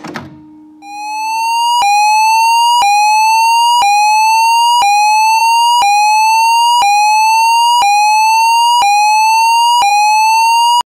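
Electronic fire alarm sounder sounding a rising sweep tone that climbs and restarts about once a second, ten sweeps in all, and cuts off abruptly near the end. It follows a click and a low steady tone in the first couple of seconds.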